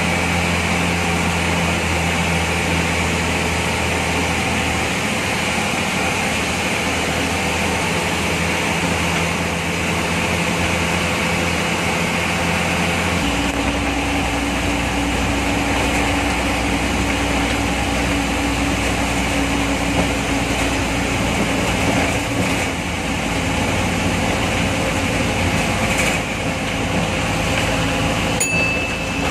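State-transport bus's diesel engine running steadily under way, heard from inside the cabin with road noise; the engine note shifts about halfway through. A short high tone sounds near the end.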